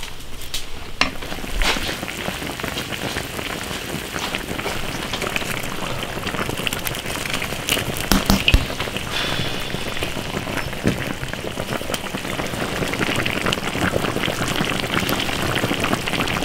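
A wok of crucian carp stewing in a spicy sauce, bubbling and sizzling steadily, with a few sharp clicks about halfway through.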